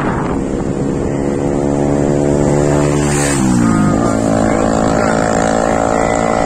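Vehicle engine accelerating, its pitch rising steadily, then dropping sharply about three and a half seconds in, as at a gear change, before running steadily. Wind rushes underneath.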